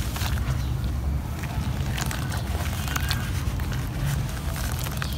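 Hands squeezing and crumbling lumps of wet sand-cement mud in a basin of muddy water: wet squelching and splashing with scattered small crackles, over a steady low rumble.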